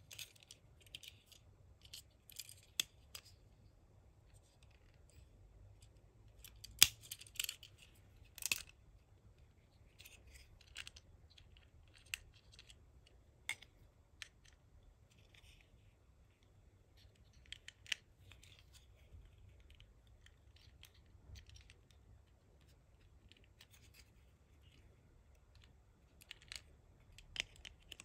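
Small sharp clicks, taps and light scrapes of a Tomica long cattle-transporter die-cast toy truck being handled, its plastic canopy roof lifted off and clicked back on. The clicks are scattered and irregular, with a few louder ones about seven and eight and a half seconds in.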